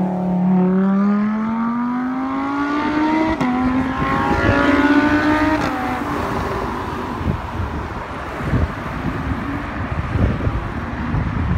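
Lamborghini Huracán Spyder's V10 accelerating past, its note climbing with one upshift about three seconds in, then fading into wind and road noise.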